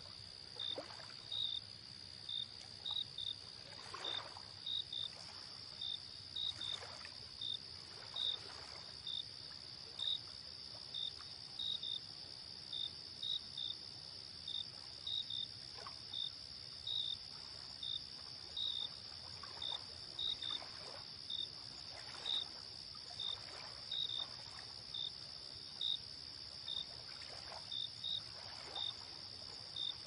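Night insect chorus: a steady high drone with crickets chirping over it, roughly one or two chirps a second. Small waves lap softly at a lakeshore beneath it, a gentle splash every second or two.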